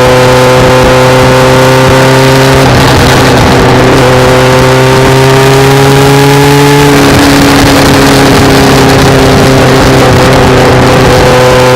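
Kawasaki GPX750R Ninja's inline-four engine running under way, over a steady rushing noise. The engine note breaks at a gear change about two and a half seconds in, then rises with speed and drops at another shift about seven seconds in.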